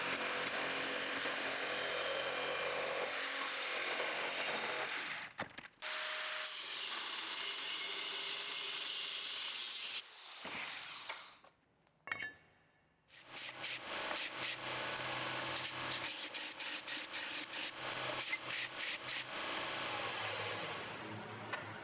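Power tools cutting steel square tube: a reciprocating saw with a metal-cutting blade and a cutoff disc, in several separate takes. It stops briefly about halfway through, then resumes with an even, rapid pulsing that fades near the end.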